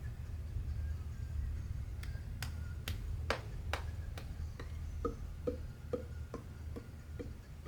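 Sharp snap-like clicks in a steady beat, about two a second, starting about two seconds in, over a low steady hum. The later clicks are softer and duller than the first few.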